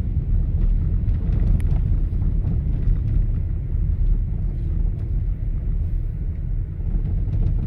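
A car driving, its steady low rumble of engine and tyre noise heard from inside the cabin.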